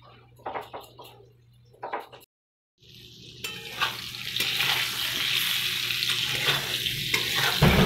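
Potato and pointed gourd wedges sizzling as they fry in oil in a pan on a gas stove. The sizzle starts about three seconds in and grows louder. Before it come a couple of brief clinks of kitchen utensils.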